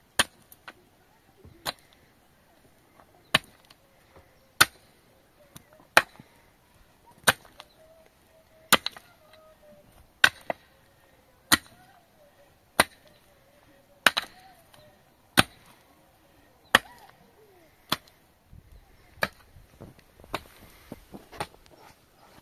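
Hard blows struck in a steady rhythm, about one every 1.3 seconds, some sixteen in all, each sharp and short.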